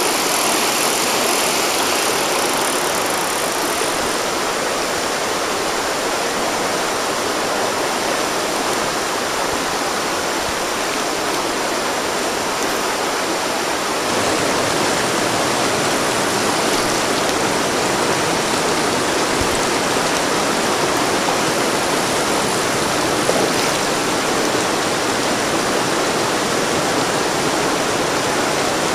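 River water rushing steadily over rocks and riffles, a constant hiss. Its tone shifts slightly about four seconds in and again about halfway through.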